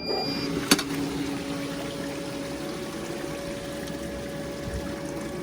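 Intex sand filter pump switching on and running steadily in backwash mode, a constant hum over rushing water, with a sharp click about a second in.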